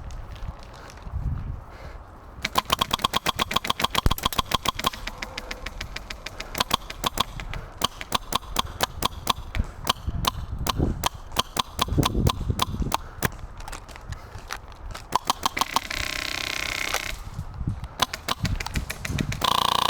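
Airsoft guns firing in rapid full-auto bursts, a fast rattle of shots starting about two seconds in and coming back in bursts. There is a short hiss about sixteen seconds in.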